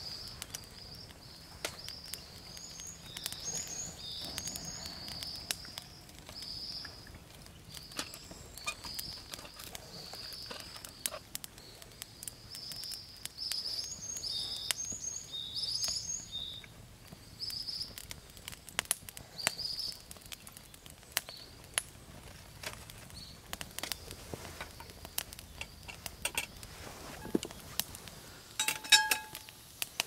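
Wood campfire crackling and popping in a metal fire stand, with sharp snaps throughout, while a bird sings repeated high chirping phrases in the background. Near the end comes a clank with a brief metallic ring as a cast iron skillet is set on the fire grill.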